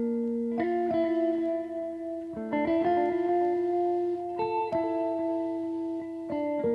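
Background music: a guitar playing sustained chords that change about every two seconds.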